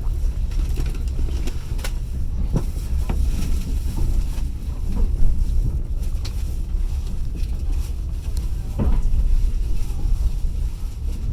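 Passenger train carriage running on rails: a steady low rumble with scattered sharp knocks of the wheels over rail joints, about five of them.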